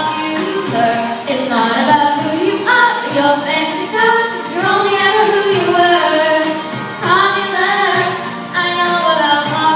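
Children's voices singing a song together, the melody moving between held notes without a break.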